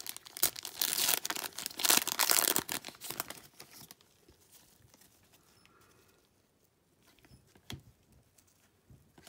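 Foil wrapper of a trading-card pack being torn open and crinkled by gloved hands, a dense crackling for about four seconds. It then goes much quieter, with a few faint clicks as the cards inside are handled.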